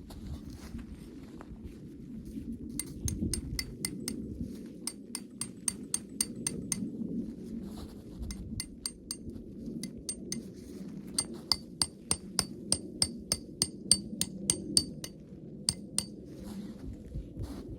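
Quick light metallic clinks with a bright ringing tone, about four a second, in two runs separated by a short pause, over a steady low rumble.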